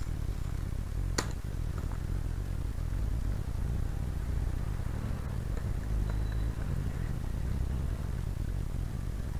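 A computer keyboard is tapped a few times: one sharp key click about a second in, then a few faint taps, over a steady low hum.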